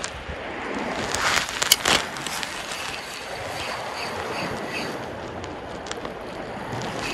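Wind buffeting the microphone over the sound of sea water lapping. A few short, sharp knocks and rustles come about a second in, as the rod is cast.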